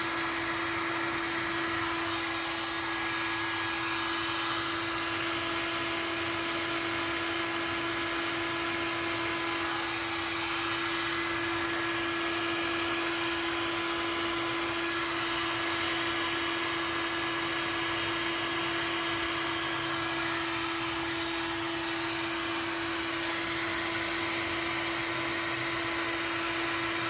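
Heat gun running steadily, its fan blowing air with a constant hum and a high whine, as it softens plastic for moulding.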